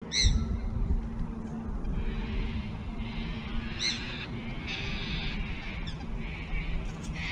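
Wind rumbling on the microphone, with two short, high bird calls, one near the start and one about four seconds in.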